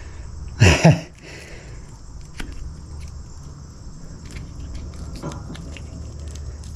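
Rubber terminal boot being worked by hand along a heavy-gauge alternator cable where it sticks: faint rubbing and a scatter of small clicks over a steady low hum. A brief voice sound comes about half a second in.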